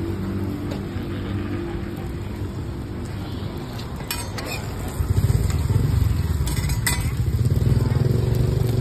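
Motorcycle engine running close by, getting louder about five seconds in, over a faint sizzle of roti frying on a flat griddle. A few sharp clicks are heard around the middle.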